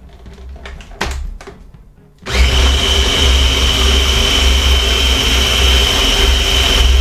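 Food processor motor starts a little over two seconds in and runs steadily with a high whine, blending softened cream cheese and heavy cream toward a smooth batter. A thump about a second in comes before it starts.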